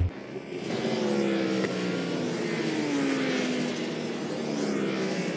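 Several endurance racing motorcycles passing at speed, a dense blend of engines with their notes falling in pitch as each goes by.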